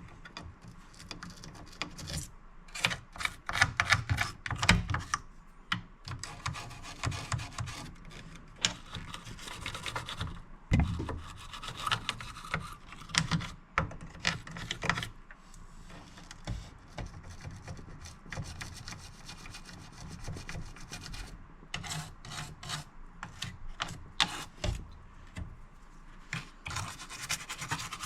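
Toothbrush scrubbing an alcohol-wetted stereo circuit board to loosen grime, in quick, irregular scrubbing strokes with brief pauses.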